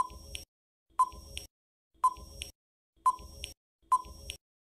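Countdown timer sound effect: five short beeps, one about every second.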